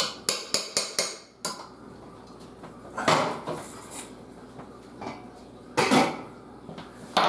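A metal spoon tapping about six times in quick succession against the rim of a stainless steel pot, knocking off risotto, followed by two longer metal clatters as the pot is handled and set down, and a sharp clank near the end.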